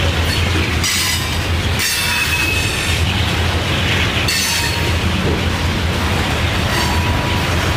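EMD two-stroke diesel locomotives running with a loaded coal train of hopper cars, a steady loud low engine drone, with brief high wheel squeals from the cars several times.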